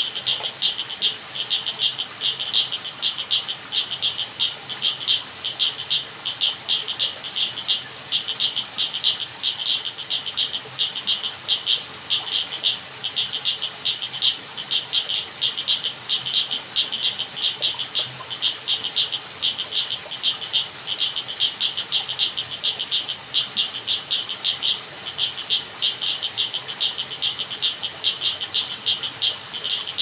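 Frog chorus at night: high-pitched calls pulsing rapidly, several a second, without a break.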